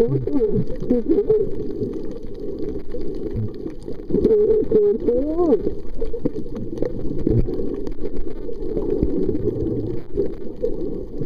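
Muffled underwater sound, dull and cut off above the low range, with a few wavering pitched calls that rise and fall. The clearest calls come about four to five and a half seconds in.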